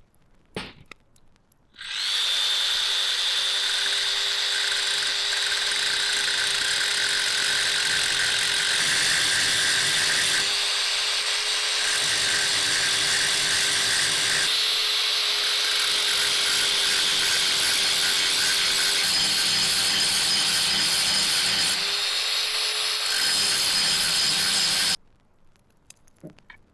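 A hand-held electric power tool runs continuously under load for about 23 seconds, starting and stopping abruptly. It has a steady motor whine over a loud grinding hiss, and its pitch lifts briefly a few times as the load eases.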